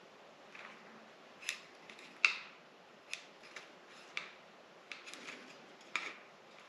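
About ten irregular, sharp clicks and snaps from hands and a tool working on the motorcycle's tail parts during a fender eliminator install.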